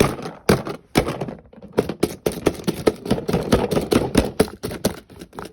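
A taped-up package being poked and torn open by hand: a quick, irregular run of sharp taps and clicks, several a second, with rustling between them.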